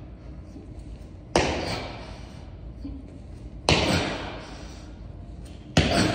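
Single-leg jump landings on a gym floor: three heavy thuds about two seconds apart, each trailing off with echo in the room.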